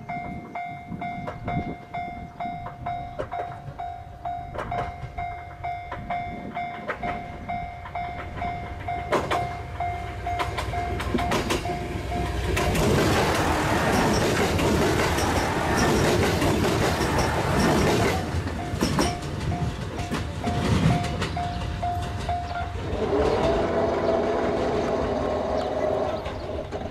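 A railway warning signal pulses steadily as a KiHa 189 diesel limited express approaches. The train's rumble swells from about halfway through, and the train sounds a horn of several tones in the last few seconds as it runs into the station.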